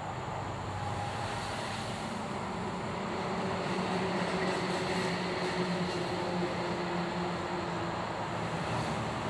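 A steady mechanical rumble with a low droning hum, slowly growing louder, like a passing vehicle or machinery.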